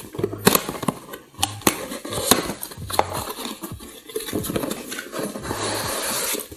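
Cardboard packaging handled as the box is opened and the inner cardboard tray is slid out: a string of sharp knocks and clicks, then a longer scraping rub of cardboard on cardboard near the end.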